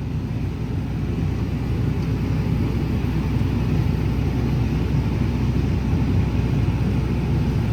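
Tractor engine running steadily under load, a low even rumble heard from inside the cab while it pulls a grain cart.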